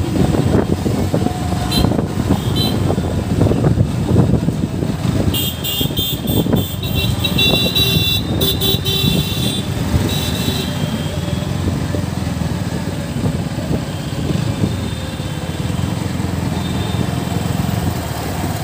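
KTM Duke motorcycle's single-cylinder engine running at low speed in a low gear. A horn sounds in a run of short beeps from about five to ten seconds in.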